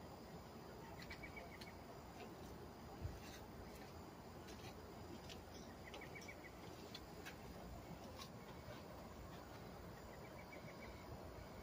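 Faint outdoor ambience: a bird gives three short series of rapid chirps over a steady low hiss, with a single soft thump about three seconds in.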